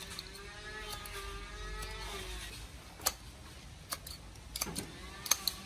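Sharp clicks of steel scissors snipping through the shark's belly tissue, a few single snips from about three seconds in and a quick cluster near the end. Before them, for about the first two seconds, a long pitched call sounds faintly in the background.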